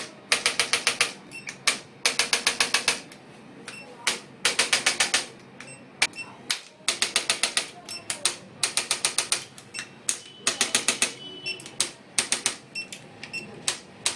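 Rapid trains of sharp mechanical clicks from a chiropractic adjusting instrument working on the knee: bursts of about six to eight clicks in under a second, repeated every second or two.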